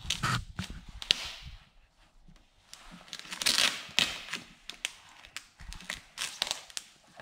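Dark smoke tint vinyl film for a taillight crinkling and rustling as it is handled, lifted and pressed by hand, in irregular bursts with the longest stretch about three and a half seconds in.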